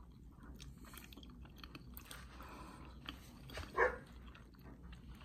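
People chewing mouthfuls of soft deviled egg, a run of soft, wet mouth clicks and lip smacks. A short, louder mouth sound comes about three quarters of the way through.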